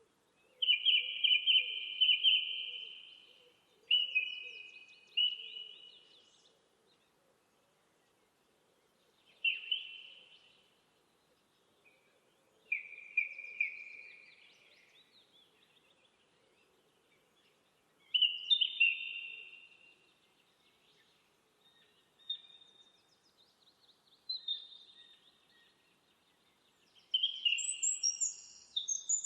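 Songbirds singing in short phrases of rapid trilled notes, each a second or two long, with pauses of a few seconds between them. Near the end a higher-pitched song joins in.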